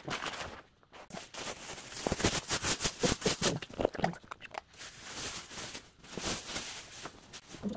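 Plastic packaging rustling and crinkling in irregular bursts as a mattress topper wrapped in thin plastic film is pulled out of its large plastic bag and handled.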